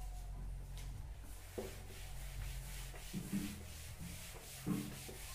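Chalkboard eraser rubbing across a blackboard, wiping it clean in repeated back-and-forth strokes that start about a second and a half in, with a few louder bumps of the eraser against the board.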